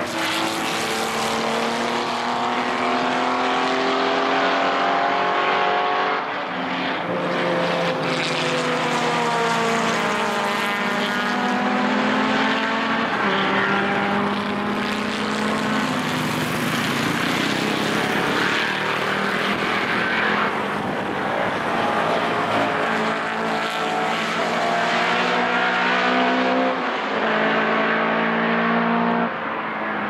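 Several historic racing cars' engines running hard one after another through a bend, their notes overlapping and rising and falling with throttle and gear changes.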